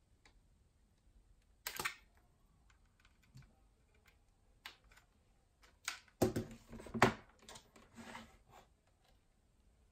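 Scattered handling clicks and knocks as a USB cable is plugged in and a slim plastic MIDI keyboard is set down on a table, the loudest cluster of knocks coming about six to seven seconds in.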